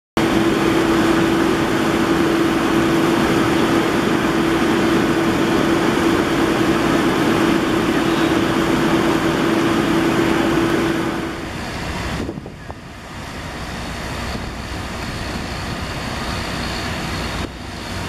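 Water gushing out of fire tankers' dump chutes into a portable drop tank, over diesel truck engines running with a steady hum. About twelve seconds in it gives way to a quieter, rougher mix of engine noise and wind.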